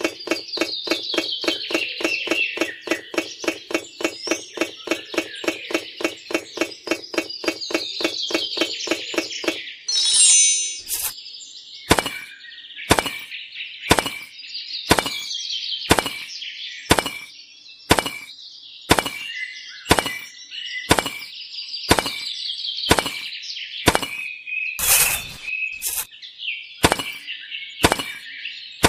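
Birds chirping with short falling calls throughout. Under them comes a rapid, even clicking for about the first ten seconds, and after that a sharp click about once a second. A brief chime rings about ten seconds in.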